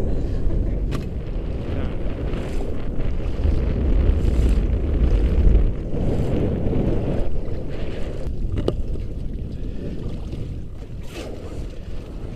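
Wind buffeting the microphone with a low rumble, heaviest in the first half, over water noise around an inflatable boat on a lake, with a few light knocks later on.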